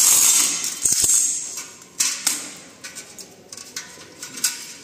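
Crushed stone aggregate rattling in a perforated metal test sieve as it is shaken, fading over the first second or so, then scattered clinks of single stones against the metal and the bowl. This is sieving through 12.5 mm and 10 mm sieves to grade the sample for an aggregate impact test.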